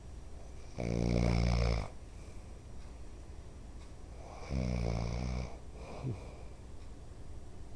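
A man snoring: two loud, low snores about a second long each, some three and a half seconds apart, with a brief fainter one just after the second.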